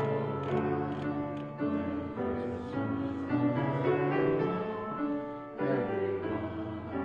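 Piano music: held chords changing about every second.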